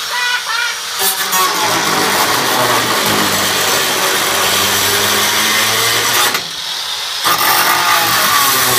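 Angle grinder cutting metal, a loud, harsh whine. It drops off about six seconds in and spins back up within a second.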